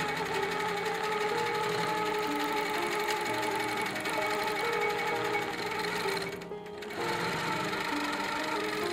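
Longarm quilting machine stitching rapidly, under background music with a melody, with a brief drop about six and a half seconds in.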